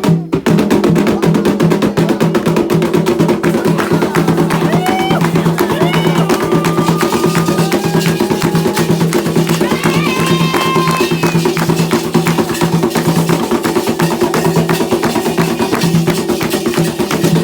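Candomblé ritual drumming: hand drums and percussion playing a fast, unbroken rhythm. Voices rise briefly above the drums in the middle.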